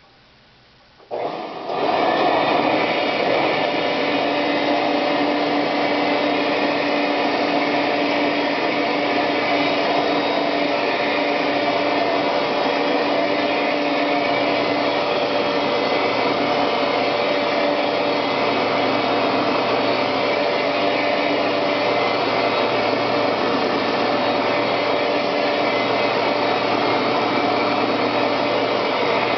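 Hoover Conquest 18-inch bagless upright vacuum cleaner switched on about a second in, its motor spinning up quickly and then running steadily at full power, a constant hum over a rush of air.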